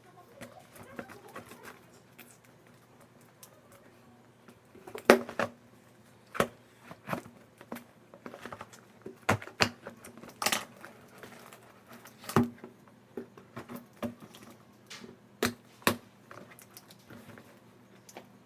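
Irregular clicks and knocks of a boxed toy being handled and turned over, with a few sharper knocks standing out, the loudest about five seconds in.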